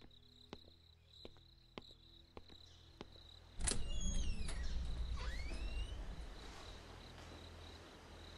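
Crickets chirring with soft regular ticks, then about three and a half seconds in a door creaks open over a low rumble, its hinge squeaking down and then up in pitch before it fades.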